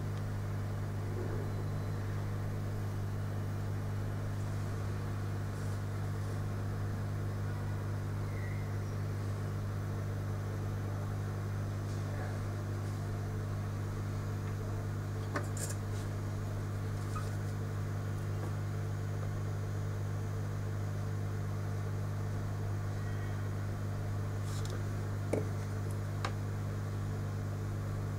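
Steady low electrical hum, with a few faint sharp clicks: one about halfway and two near the end.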